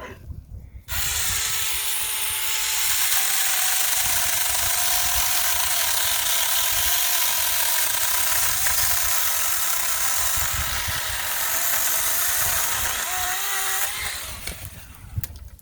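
Saker 6-inch mini cordless electric chainsaw starting about a second in and running steadily as it cuts through a 3-inch branch, then winding down near the end. It cut through really well.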